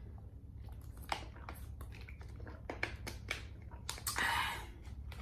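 Close-miked mouth sounds of eating and swallowing: a scatter of small wet clicks, with a short hiss a little past four seconds in.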